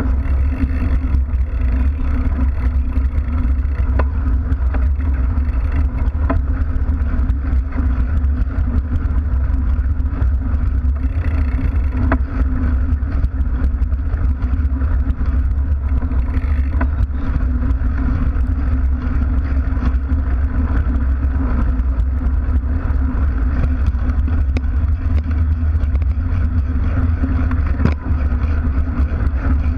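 Mountain bike rolling along a packed dirt path, heard from a camera mounted by the wheel: a steady low rumble of tyre and frame vibration, with a few small clicks and rattles.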